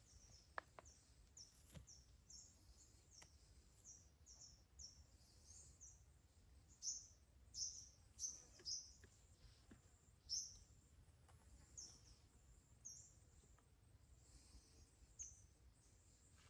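A bird chirping over and over in short, faint, high notes, about two a second, with a few faint clicks in between.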